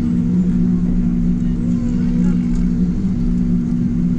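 Steady jet engine drone and airflow noise inside the passenger cabin of a Boeing 777-200ER, with a low, even hum over a constant rush.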